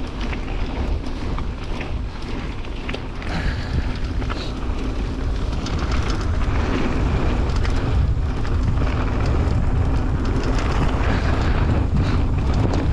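Wind buffeting the microphone and mountain-bike tyres rolling over loose, gravelly dirt on a fast singletrack descent, with scattered clicks and rattles from the Ragley Big Al aluminium hardtail. It gets louder from about six seconds in as speed builds.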